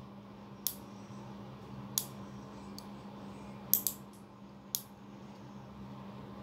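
Nail clipper snapping through fingernails: five sharp clips at irregular intervals, two of them in quick succession a little before the fourth second.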